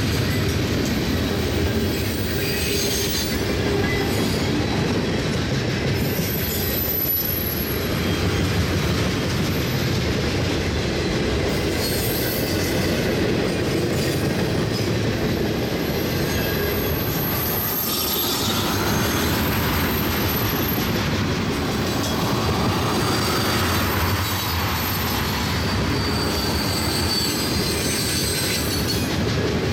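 Freight train cars (tank cars, boxcars and covered hoppers) rolling past: a steady rumble and clatter of steel wheels on rail. Brief high-pitched wheel squeals come and go several times.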